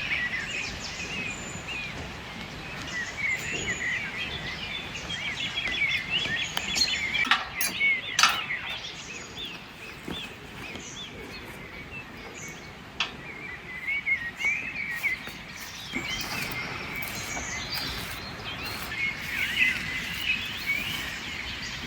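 Several songbirds chirping and singing at once, a continuous chorus of quick twittering notes over a steady outdoor background. A few sharp clicks stand out about a third of the way in.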